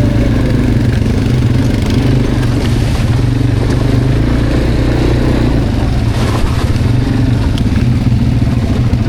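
Quad bike (ATV) engine running steadily as the bike is ridden, with a brief noisy rattle about six seconds in.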